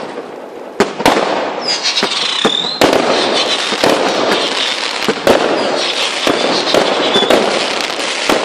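Heavy rain falling: a dense crackling hiss full of sharp drop impacts.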